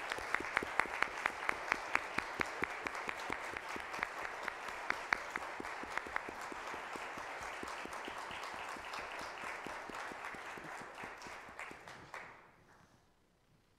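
Congregation applauding, with sharp individual claps standing out in the first half. The applause thins and dies away near the end.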